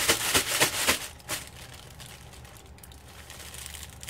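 Aluminium foil and a plastic bag crinkling as foil-wrapped burritos are pushed into the bag: a quick run of sharp crinkles for about the first second, then quieter, scattered rustling.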